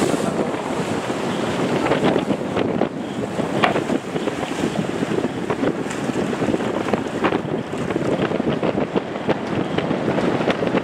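Wind buffeting the microphone over the steady rush of water past a sailing yacht's hull under sail, with short irregular splashes.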